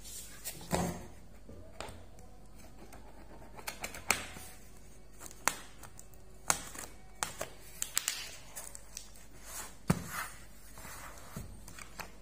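Packing tape being picked at and slit open on a cardboard box with the point of a pen: irregular taps, clicks and short scratchy rips of tape and cardboard, with a few sharper knocks among them.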